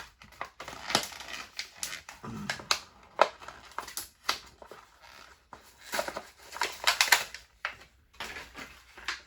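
A Hot Wheels blister card being torn open by hand: the plastic blister cracks and crinkles and the cardboard backing tears, in a run of irregular crackles and crunches.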